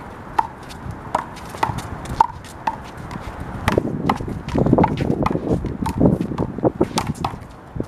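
A rubber handball bouncing about twice a second with a hollow pop. About three and a half seconds in, this gives way to a busier run of ball strikes, quick footsteps and sneaker scuffs.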